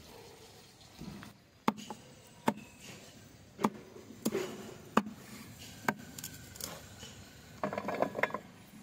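Knife chopping on a wooden cutting board: sharp single strikes about once a second, then a quicker flurry of strikes near the end.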